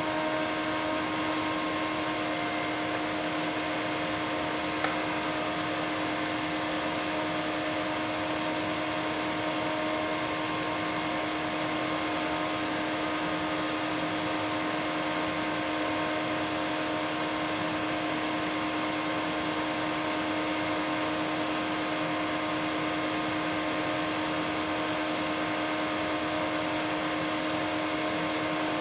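Water simmering in a metal juice can heated on an induction heater's coil: a steady seething hiss with a steady hum beneath it, and one small tick about five seconds in.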